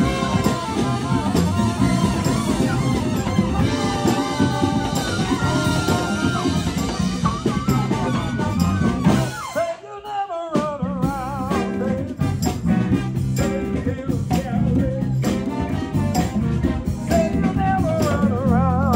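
Live band playing, with electric guitar, congas and saxophone, and a singer's voice at times. About halfway through the band cuts out for a moment, then comes back in under a held, wavering note.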